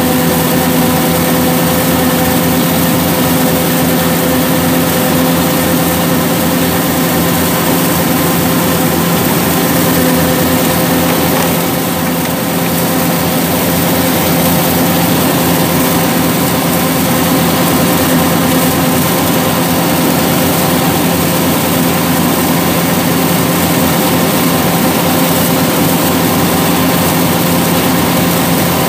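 Yanmar 850 combine harvester running steadily under load while cutting rice: a continuous diesel engine drone mixed with the whirr of the cutting and threshing machinery.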